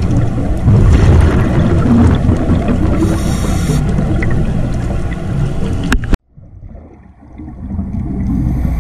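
Underwater sound picked up through a diving camera's housing: a steady rumble with a scuba diver's exhaled regulator bubbles hissing about three seconds in. A little after six seconds the sound cuts out suddenly, then fades back in.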